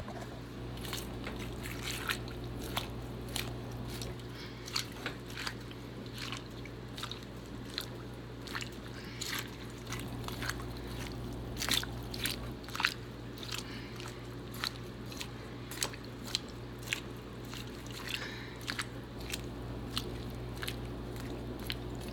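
Chopped vegetables, water and seasonings being mixed in a soup pot: irregular wet squishes, crunches and small clicks over a steady low hum.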